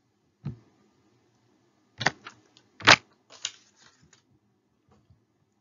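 Handling noise at a computer desk: a soft thump, then a cluster of sharp clicks and knocks, the loudest about three seconds in, trailing off into a few faint ticks.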